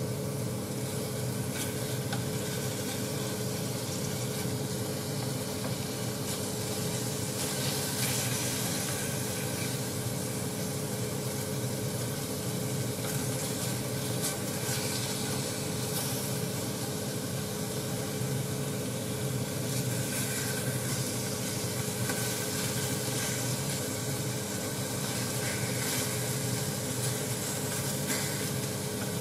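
Sliced meat sizzling as it fries in a small stainless-steel saucepan on an induction hob, stirred with wooden chopsticks, with a steady hum underneath.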